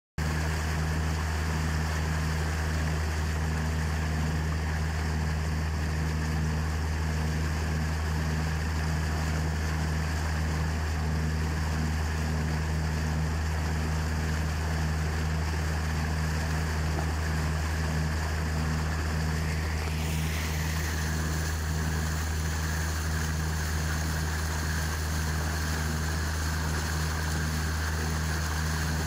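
Small boat's motor running steadily under way, a constant low drone with water hissing along the hull.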